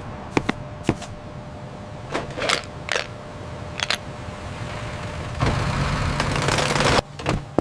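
A truck engine running, with scattered sharp clicks and knocks. About five and a half seconds in, a louder rushing clatter swells and then cuts off suddenly.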